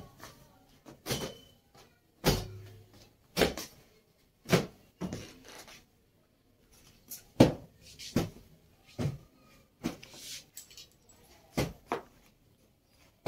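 Repeated sharp slaps of a cloth beating the bedding to knock the dust out, about one blow a second and a dozen in all, unevenly spaced.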